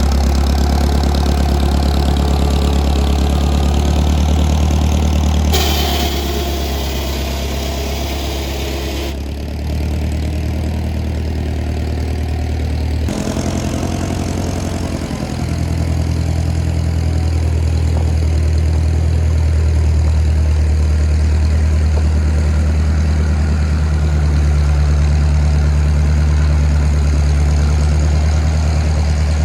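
All-terrain forklift engine running steadily at a low, even speed, with a deep hum. Its tone changes suddenly a few times.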